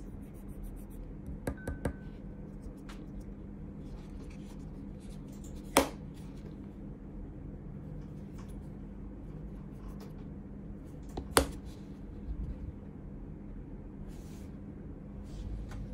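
Hands handling the small plastic parts of a Rode Wireless Micro kit (transmitters, receiver and charging case) on a desk: a few light clicks and taps, with two sharp clicks about six and eleven seconds in, over a steady low hum.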